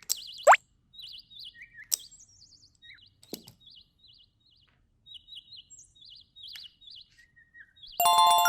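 Short, warbling, bird-like chirps repeating throughout. A quick rising whoop comes about half a second in, and a bright chime sounds near the end.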